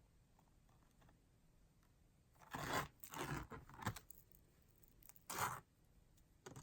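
Handling noise as costume jewelry is sorted from a box: four short crunchy rustles spaced through the quiet.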